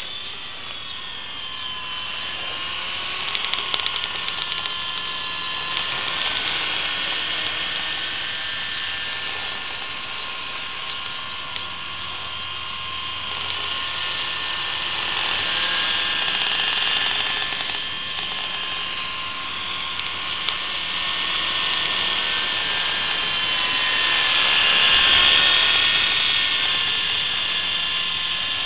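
WL Toys V912 RC helicopter flying overhead: a steady, high electric-motor whine with its spinning rotors. The pitch wavers slightly and the loudness swells and eases as it manoeuvres, loudest near the end.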